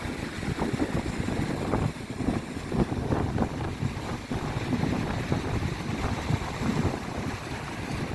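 Strong sea wind buffeting the microphone in irregular gusts, a heavy rumbling roar, with surf underneath.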